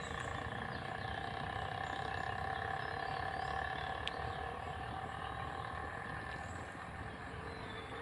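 Steady hum of a distant engine, with a low rumble of wind on the microphone and a single click about four seconds in.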